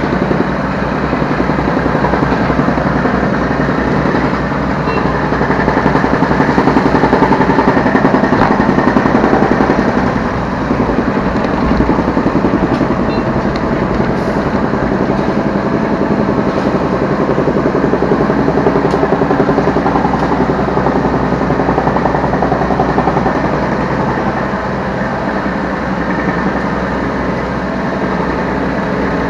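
Diesel engine of a Yanmar B3 Sigma 3-ton mini excavator running steadily while the machine works, heard from the operator's seat. It runs a little louder for a few seconds about five seconds in.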